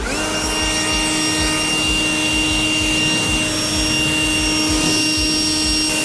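Handheld leaf blower switched on and running at a steady whine over rushing air, blowing sawdust off freshly sawn pine boards.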